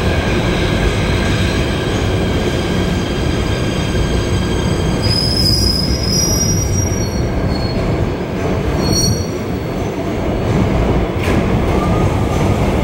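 Kawasaki PA-5 PATH subway train braking into an underground station, running over the rails with a steady rumble and high squealing tones from its wheels and brakes as it slows. The loudness dips briefly as the train comes to a stop about two-thirds of the way through.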